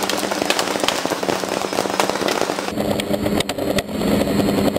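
Paintball marker firing a rapid, irregular volley of sharp pops at a hovering quadcopter. The drone's electric motors and propellers hum underneath, growing stronger a little past halfway.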